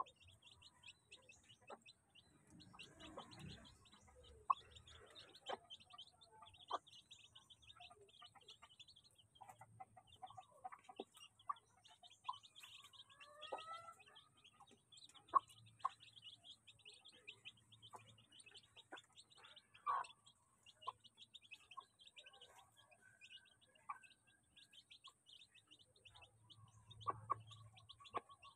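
Young chicks peeping busily and continuously while they feed, with a few lower calls from the mother hen. Occasional sharp taps come from beaks striking the feed bowl as the birds peck.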